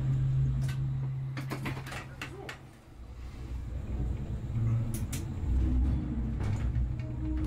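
A vehicle running, heard with a steady low hum, scattered clicks and rattles; the hum fades about three seconds in, then picks up again.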